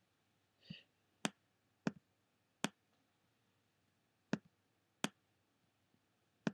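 Computer mouse button clicking: six sharp single clicks at uneven intervals.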